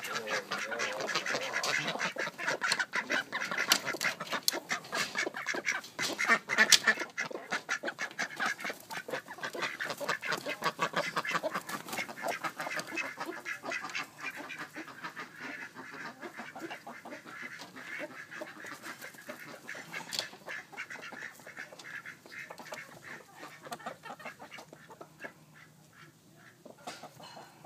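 A flock of domestic ducks quacking in a dense, continuous chorus that grows fainter through the second half.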